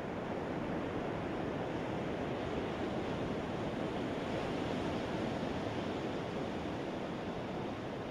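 Ocean surf on a beach: a steady rush of waves with no single crash standing out.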